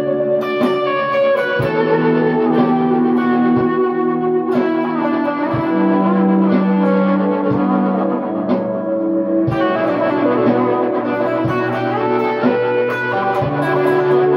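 Electric guitar, a Squier Telecaster, played through ambient reverb and delay pedals into a Boss Katana amp on its clean channel: plucked notes ring on and overlap into a sustained, echoing wash.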